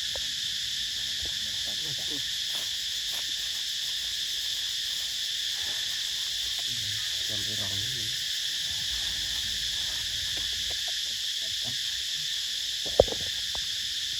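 Steady, unbroken high-pitched chorus of insects, with a faint voice in the background about halfway through and one sharp click near the end.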